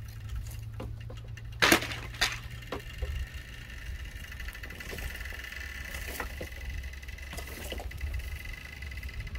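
Dry branches snapping and knocking as firewood is broken and gathered by hand, with two loud cracks close together about two seconds in and lighter clicks of wood after. A steady high-pitched drone runs in the background from about three seconds in.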